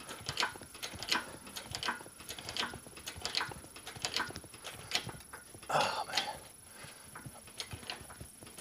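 20-ton hydraulic shop press working under load, giving irregular sharp clicks and knocks about two or three a second as it forces a freezer-shrunk steel sleeve into a tight press fit. The fit is stiffening, with the press close to its limit.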